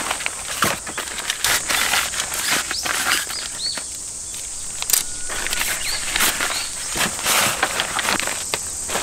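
Sectioned metal tarp poles clicking and knocking together and a fabric pole bag rustling as they are pulled out and handled, with a steady high insect drone and a few short bird chirps behind.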